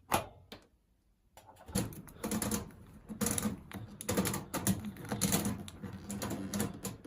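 Washing machine control-panel buttons clicking as they are pressed: a single press at the start, then a quick, repeated run of presses for most of the rest, stepping through the wash-time setting.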